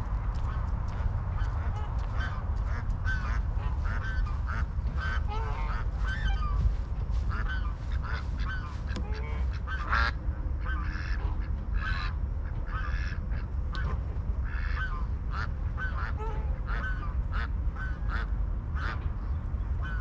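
Many short bird calls, several a second, over a steady low rumble.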